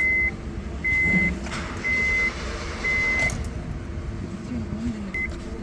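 Honda Airwave's 1.5-litre petrol engine idling steadily, running smoothly with no misfire after its fuel pump was replaced and its tappets adjusted. Over it a high electronic warning beep repeats about once a second, each beep about half a second long, stopping for about two seconds near the end.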